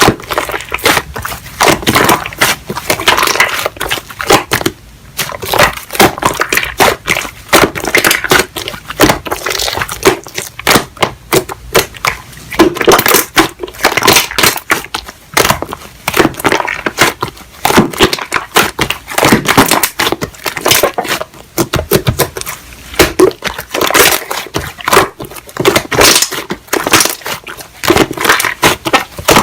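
Hands squeezing and pressing slime, making a dense, irregular run of crackling, popping clicks.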